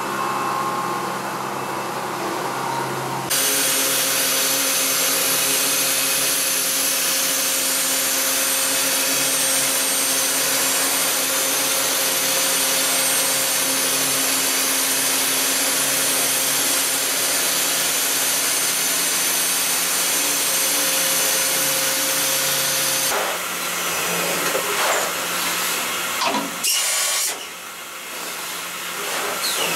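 Hwacheon M3-5AX 5-axis CNC machining center milling metal. For the first few seconds it cuts a stainless-steel impeller under flood coolant. Then comes a louder, steady hissing cut with a held tone while it mills a mold core under oil mist. Near the end the sound turns uneven, with a brief drop.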